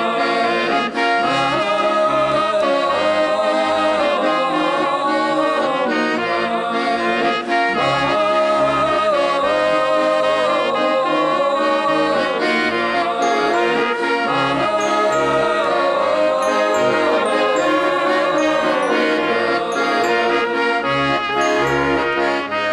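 Background music with a melody line over chords, steady in level throughout.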